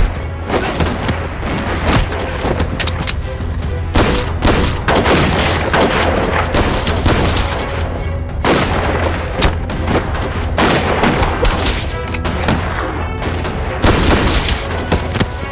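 Battle-scene soundtrack: repeated gunshots and booming explosions over dramatic background music.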